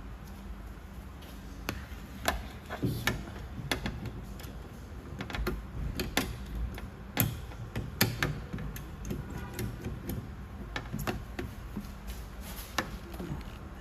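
Paintless dent repair hook worked inside a car's rear door, its metal tip and rod clicking and ticking against the sheet-metal door panel in irregular sharp clicks, a few louder ones around the middle.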